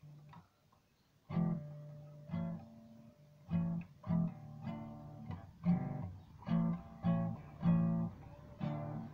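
Small classical guitar played with strummed chords. After about a second of quiet, a firm strum comes every half second or so, with the chords ringing between strums.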